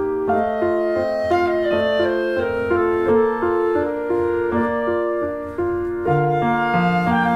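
Background music: a gentle melody on piano and woodwind, with a lower part joining about six seconds in.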